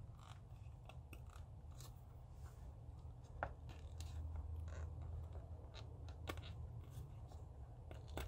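Faint scattered clicks and light scrapes as the heated mirror glass is handled against a Jeep ZJ side-mirror housing while the heating-element wires are plugged in behind it, with one slightly louder click about three and a half seconds in. A low steady hum runs underneath.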